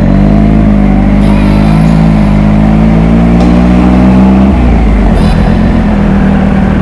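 Triumph Speed Triple RS three-cylinder engine through twin Arrow silencers, pulling on the throttle with a steady, slightly rising note, then dropping to a lower, rougher note about four and a half seconds in as the throttle eases.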